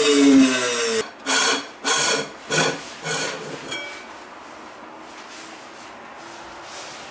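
Tabletop high-speed grinding mill's motor winding down after a grinding run, its whine falling in pitch until it stops about a second in. Then about five short metallic scrapes and clunks as the stainless-steel lid is handled and lifted off, followed by quiet.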